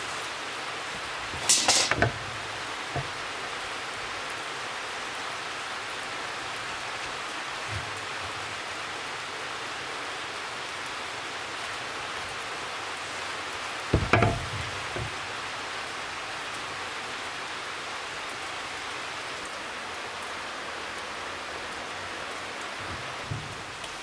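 A steady hiss runs throughout, broken by two brief loud knocks, one about two seconds in and another about fourteen seconds in.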